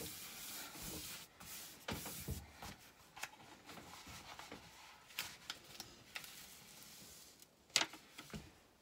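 A diamond-painting canvas under its plastic protective film rustling and rubbing as hands unroll and smooth it flat on a table. There are scattered small crinkles, and a sharper crackle comes near the end.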